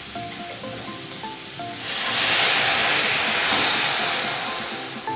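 Water poured into a hot steel kadai of frying spice paste, setting off a sudden loud sizzle about two seconds in that slowly dies away as the masala is cooked down. Light background music with repeating notes plays underneath.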